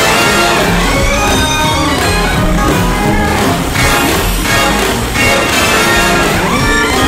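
A recorded rock song with guitar, loud and steady throughout.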